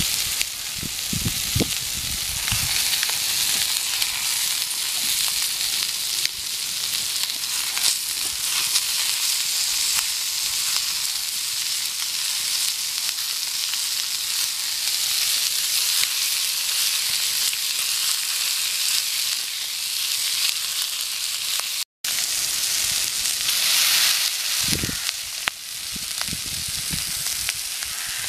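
Masala-coated catfish pieces frying in oil on a griddle over a wood fire: a steady sizzling hiss, with a few low bumps near the start and near the end as the pieces are handled. The sound cuts out for a split second about three-quarters through.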